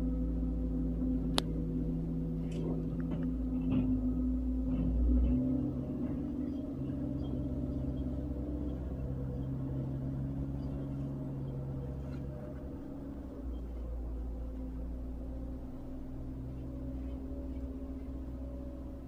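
Caterpillar 277 compact track loader's diesel engine running steadily as it works, with a sharp clack about a second and a half in. The engine note drops about five seconds in, and the sound slowly fades as the machine moves away.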